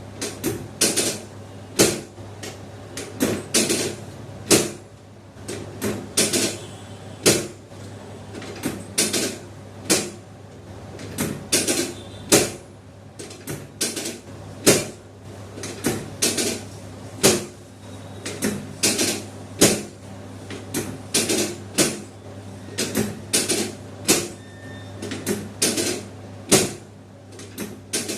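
Chiropractic drop table's padded sections dropping with repeated sharp clacks, roughly one to two a second, during a lumbar spine adjustment, over a steady low hum.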